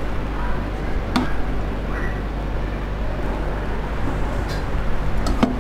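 Steady low hum and background noise, with two light clinks, about a second in and near the end, as a slotted steel spatula knocks against the pot and the plate while lifting out syrup-soaked gujiyas.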